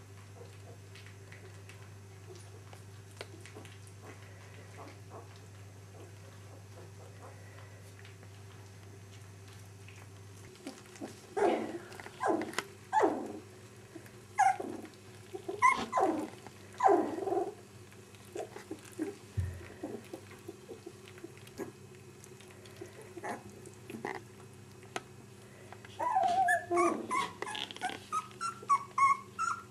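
Dogs whimpering and yipping in short, loud, rising-and-falling cries. They begin about a third of the way in, after a faint steady hum. Near the end comes a quick run of higher-pitched whines.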